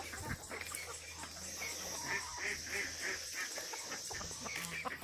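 Geese honking among farmyard poultry, a quick run of short, repeated honks in the middle.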